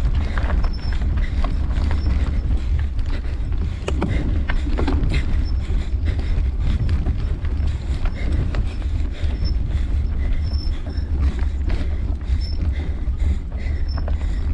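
Mountain bike riding over a stony dirt trail, heard through a bike-mounted camera: a constant low rumble with frequent clicks and rattles as the bike runs over the stones.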